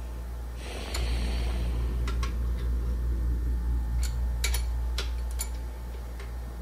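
Ratchet wrench turning the main cap bolts on an LS V8 block, giving about seven sharp metallic clicks spread over several seconds. A short rustle comes about a second in, and a low hum grows louder at the same time and eases off near the end.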